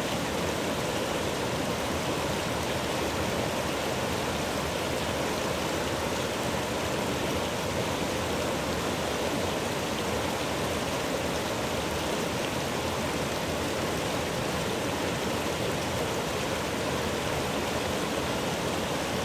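Mountain stream rushing over boulders and small waterfalls: a steady, even rush of water.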